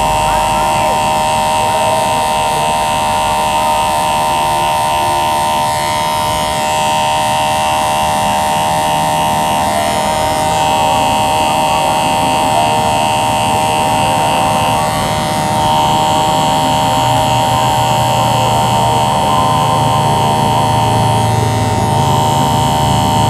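Cordless electric hair clipper running continuously as it trims short hair at the nape, a steady buzz whose higher part shifts every few seconds as the blade moves through the hair.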